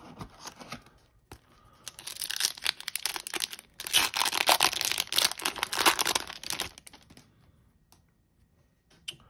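A hockey trading-card pack's wrapper being torn open and crinkled by hand, a dense crackling tear lasting about five seconds and starting about two seconds in. A few light handling clicks come before and after it.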